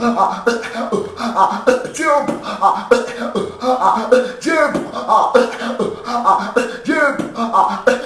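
Human beatboxing with no electronic effects: a steady mouth-made drum groove of sharp clicks and hits, with a sliding vocal sound that recurs about every second and a quarter.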